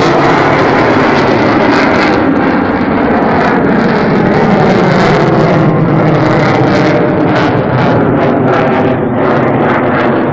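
A Su-27 jet fighter's twin turbofan engines, loud and steady as it flies overhead, the pitch drifting slightly lower as it passes.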